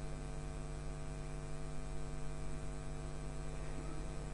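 Steady electrical mains hum, an unchanging buzzy drone with nothing else standing out.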